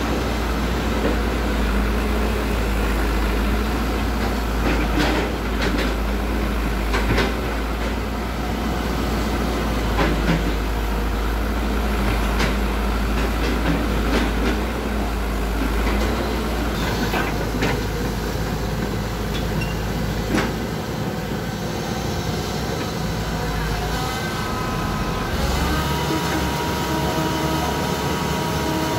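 Hydraulic excavator's diesel engine running steadily under load, with sharp knocks and clanks now and then as the machine works.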